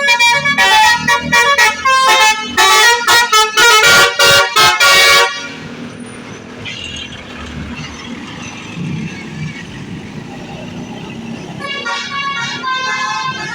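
A bus's Basuri telolet horn, a multi-tone electric horn, playing a fast tune of short loud notes that cuts off suddenly about five seconds in. A low engine rumble fills the gap, and the horn tune starts again near the end.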